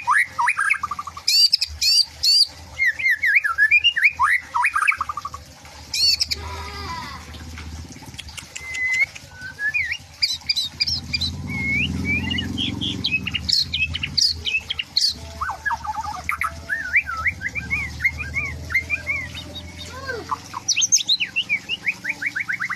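White-rumped shama (murai batu) singing: a long run of rapid, varied whistled phrases that slide up and down, broken several times by sharp, high clicking notes. A low rumble sits under the song midway.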